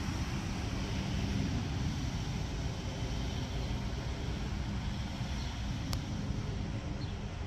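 Distant Mack MRU garbage truck's diesel engine running steadily, a low hum under an even rush of noise, with a brief click about six seconds in.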